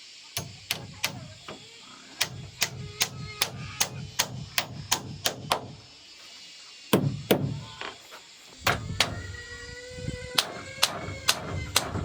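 Hammer striking repeatedly on timber, about two to three blows a second, pausing briefly twice midway, with a faint metallic ring in the later blows.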